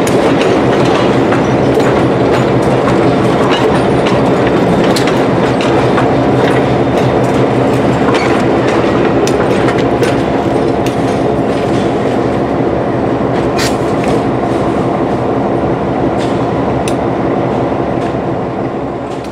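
Diesel locomotive running with a steady engine drone while its wheels click over rail joints as the train rolls by. The sound fades near the end.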